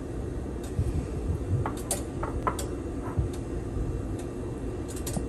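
A few light clicks and taps, mostly in a cluster about two to three seconds in, as shredded cheese is sprinkled by hand over a ceramic baking dish, over a steady low hum.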